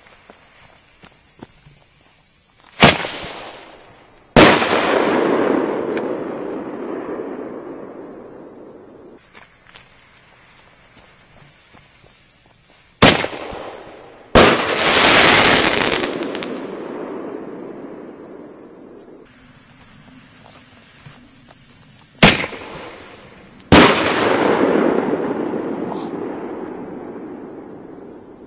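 Three 30 mm firework shell tubes (Bombenrohre) fired one after another: each a sharp launch bang, then about a second and a half later a loud shell burst that trails off over several seconds. Crickets chirp steadily underneath.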